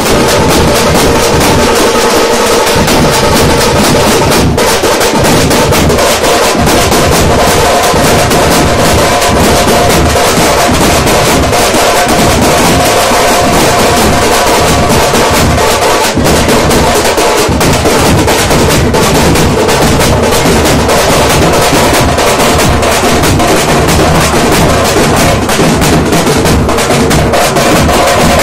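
A group of drummers beating large double-headed bass drums with sticks, several playing together in a loud, dense, unbroken rhythm.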